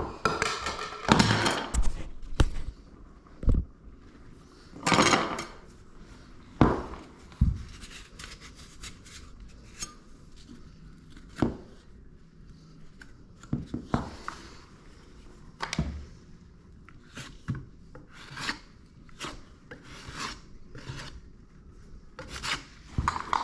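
Irregular rubbing and scraping on wood, with scattered sharp knocks and clicks.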